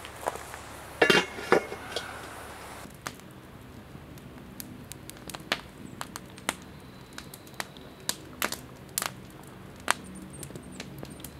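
A metal dome grill lid is handled, giving two sharp clanks with a brief ringing note about a second in. After that come scattered, irregular sharp clicks and snaps, faint against a quiet background.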